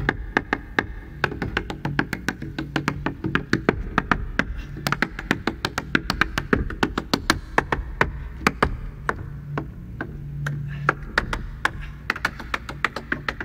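Tap dance shoes striking a wooden tap board in quick, irregular rhythms, several crisp taps a second, over a jazz trio with upright bass playing low sustained notes.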